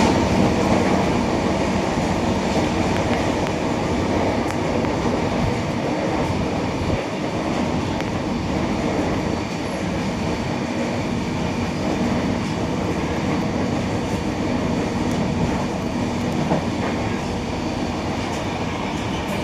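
Indian Railways train in motion: a steady, continuous rumble and rattle of wheels on the track.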